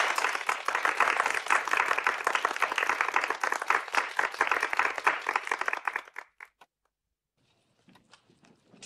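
A small group of people applauding indoors with steady, dense hand clapping that thins out and stops about six seconds in. A few faint clicks follow near the end.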